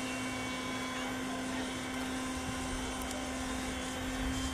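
Steady mechanical hum with a constant low drone and fainter higher tones, unchanging throughout, like a motor or engine running at idle.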